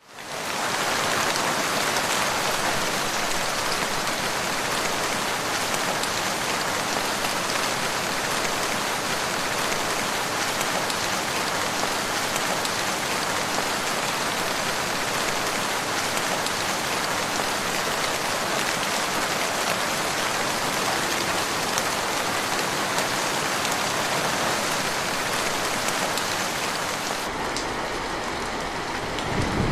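Steady rain falling, a dense even hiss of many drops that fades in over the first second.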